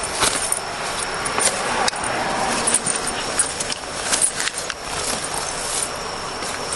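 Light metallic jingling and rustling, with many short clicks scattered through, over a steady background hiss.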